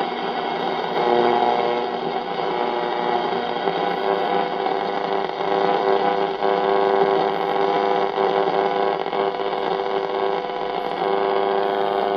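GoldStar T-609 transistor radio's speaker giving a steady buzzing hum with static as the AM dial is turned between stations.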